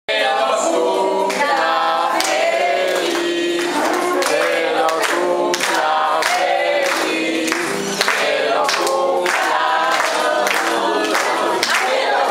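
A group of voices singing together in held notes over a steady beat of sharp strikes about twice a second.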